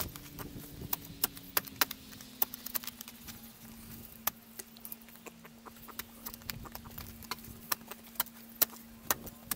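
Shovel digging a post hole in soil: irregular sharp crunches and scrapes as the blade cuts into the earth and lifts it, with a steady low hum underneath.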